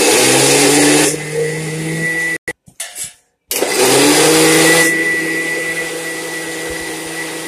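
Preethi mixer grinder running, its steel jar grinding soaked urad dal into thick vada batter. The motor whines up to speed, runs about two seconds, stops for about a second, then spins up again and runs on steadily.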